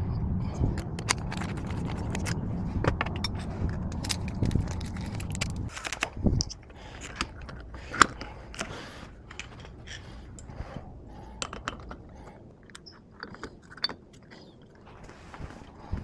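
Keys and metal door-lock parts jangling and clicking as they are handled, with scattered sharp clicks and scrapes and one loud click about eight seconds in. A low rumble runs under the first six seconds.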